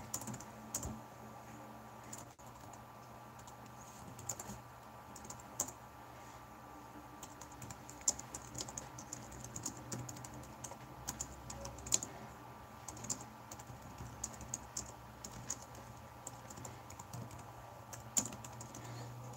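Typing on a keyboard: faint irregular clicks of keys coming in quick runs with short pauses, over a low steady hum.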